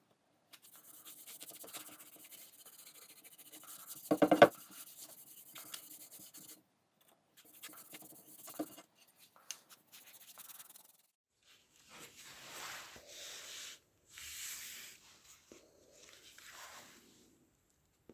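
Light scratching and rubbing of hand finishing work on a restored hatchet, with one sharp knock about four seconds in. From about twelve seconds in come several soft swelling swishes.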